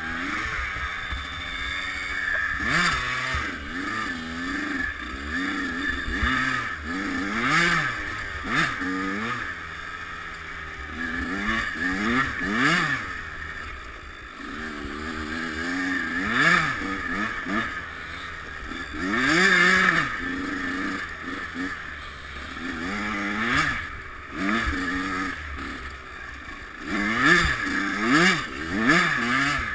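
Kawasaki KX100 two-stroke single-cylinder dirt bike engine revving hard and backing off again and again, its pitch rising and falling many times as the rider accelerates, shifts and slows through the trail.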